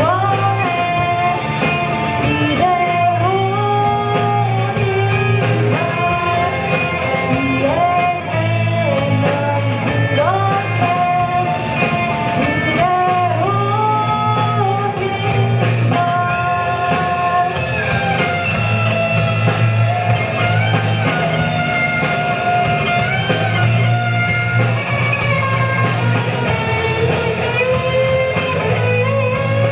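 Live rock band performing with electric guitar, bass and drums, a singer's voice carrying the melody.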